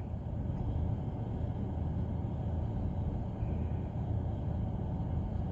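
A steady low rumble, with nothing sudden in it.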